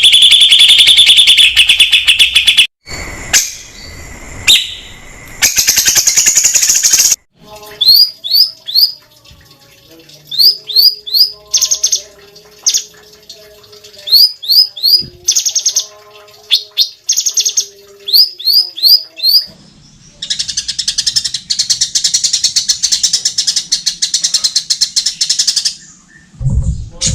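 Cucak cungkok songbird singing. It opens with a fast high trill. This is followed by clusters of quick upward-sweeping whistles, then a long harsh rasping call. A low thump comes near the end.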